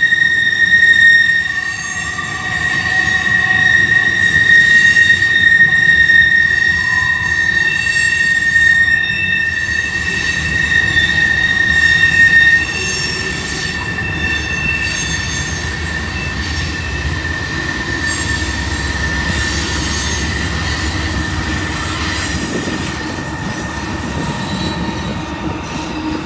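Tank cars of a BNSF oil train rolling past with a steady high-pitched wheel squeal, loudest for the first twelve seconds or so and then fainter. A low rumble builds near the end as a BNSF diesel locomotive comes alongside.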